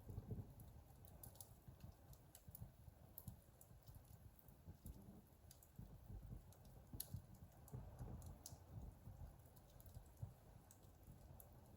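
Faint wood fire crackling in a fireplace: irregular sharp pops and snaps over a soft low rumble of the flames.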